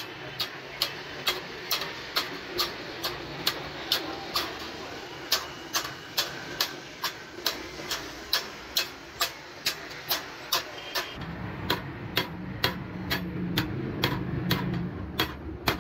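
A small hammer taps a sheet-metal ring against a flat steel plate, shaping it for a milk can. The strokes are short, sharp metallic clicks at about two a second. About eleven seconds in, a steady low engine-like hum joins them.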